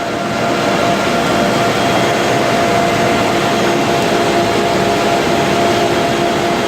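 Blind-making machine running steadily: a loud, even machine noise with a steady whine on top.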